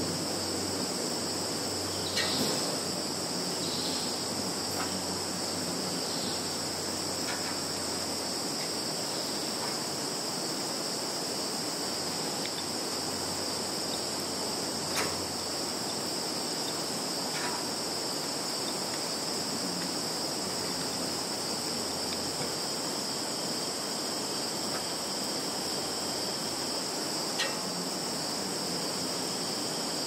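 A chorus of field insects, mainly crickets, chirring on without a break at a high pitch, with a few faint clicks scattered through it.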